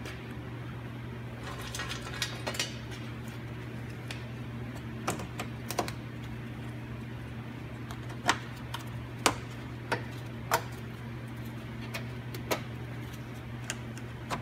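Sharp plastic clicks and taps, a dozen or so scattered singly and in pairs, as the plastic radiator-support cover is pressed down and its push-pin fasteners snapped into place, over a steady low hum.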